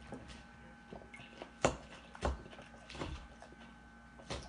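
Eating sounds: a fork picking at salad in a ceramic bowl, with a handful of sharp clicks, the loudest a little over a second and a half in, and quiet chewing between.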